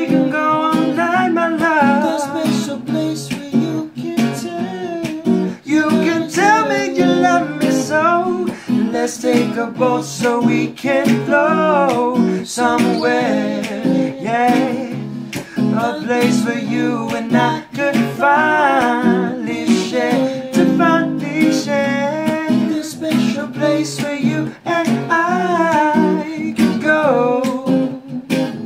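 Song performance: acoustic guitar strumming under a singing voice carrying the melody.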